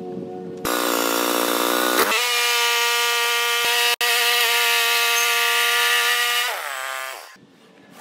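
Portable bandsaw sawmill running steadily with a strong pitched whine, then its pitch sliding down as it winds down near the end.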